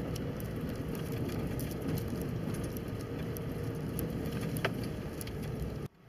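Car running slowly on a dirt road, heard from inside the cabin: a steady low engine and tyre rumble with light rattles and ticks. It cuts off suddenly just before the end.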